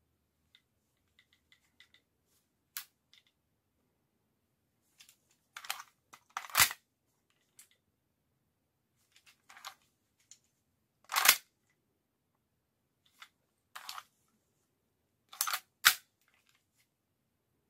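Airsoft 1911 pistol being reloaded by hand: small ticks, then three groups of magazine and slide clicks about five seconds apart, each ending in a sharp clack.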